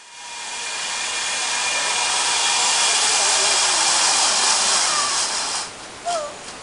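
A steady rushing hiss, mostly high-pitched, that builds over the first second or two and stops fairly abruptly about five and a half seconds in.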